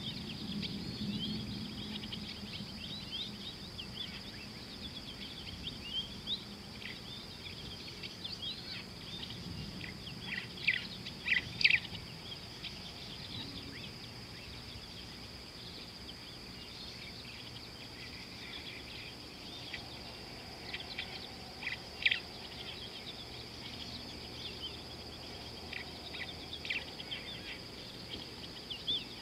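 Wild birds chirping and calling over a steady high-pitched hiss. The calls come as many short chirps, with louder clusters about a third of the way in and again past two thirds.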